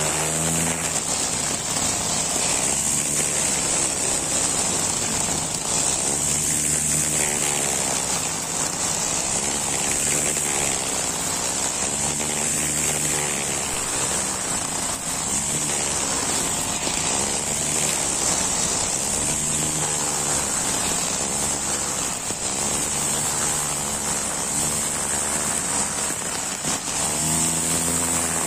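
Honda four-stroke brush cutter with a single nylon trimmer line, running at high revs while cutting grass. Its engine note rises and falls every few seconds as the throttle is eased and opened again, over a steady high hiss.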